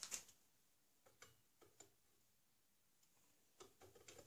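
Near silence with a few faint clicks and light taps from handled tools: a couple right at the start, single ones a little over a second in, and a small cluster near the end.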